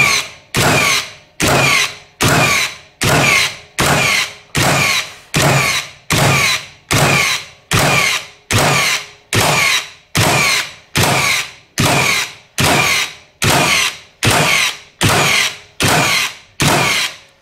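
Hitachi (HiKOKI) NR1890DBCL 18 V brushless cordless framing nailer firing nails into a very hard red gum beam, shot after shot in a steady rhythm of a bit more than one a second. Each shot is a sharp bang that dies away over about half a second.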